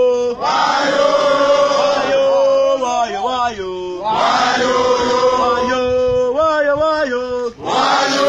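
A group of men singing a call-and-response chant: a single lead voice sings a line and the group answers together, the group coming in three times.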